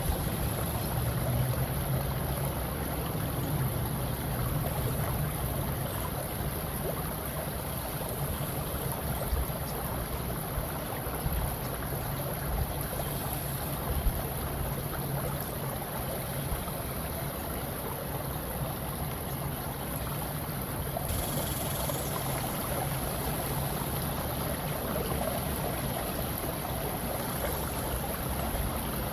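Steady water ambience: a continuous wash of flowing, lapping water with a low rumble beneath it.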